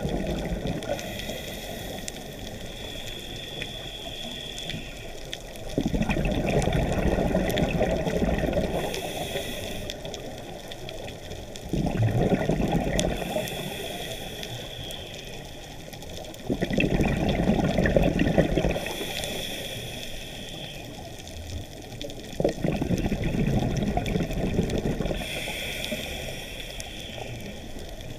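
Scuba diver breathing through a regulator underwater: a hissing inhalation alternates with a louder rush of exhaled bubbles, four exhalations about five to six seconds apart.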